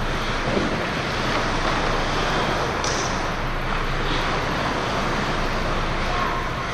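Ice arena ambience: a steady, even rush of noise, with a couple of faint, brief scrapes in the middle from hockey play at the far end of the rink.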